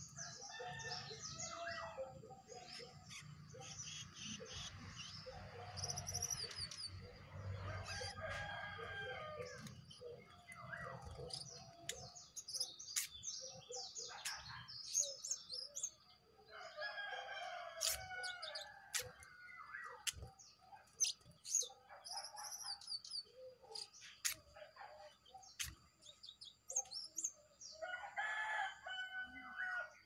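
Small wild songbirds (jongkangan) chirping and calling repeatedly around a caged bird, with a rooster crowing now and then in the background, clearest near the end.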